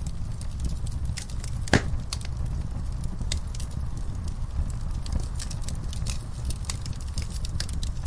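Wood fire burning in a fireplace: a steady low rumble with irregular crackles and snaps of burning logs, and one loud pop a little under two seconds in.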